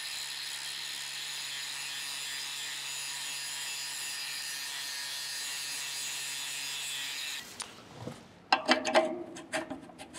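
DeWalt angle grinder running steadily with a constant whine as its abrasive disc grinds an old weld bead off the forge blower's outlet neck, cutting off about seven seconds in. Near the end come a few sharp metallic clinks and knocks as a steel exhaust-pipe coupler is handled and pushed onto the outlet.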